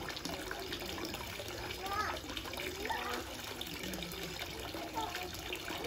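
Steady trickle of water running from a small spout down a metal chute, with faint distant voices now and then.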